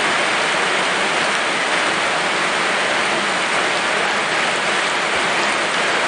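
Steady rain falling on open water: an even patter of many drops striking the surface, with no let-up.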